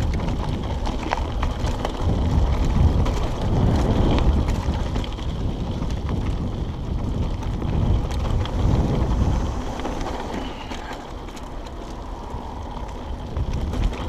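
Mountain bike riding fast down a bumpy dirt and rock trail: wind rushing over the microphone, tyres rolling over stones and the bike rattling with many small clicks and knocks. It gets a little quieter about ten seconds in.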